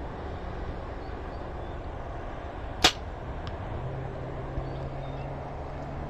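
A single shot from a compound bow: one sharp, short crack of the string and arrow released, about three seconds in, over a steady low background rumble.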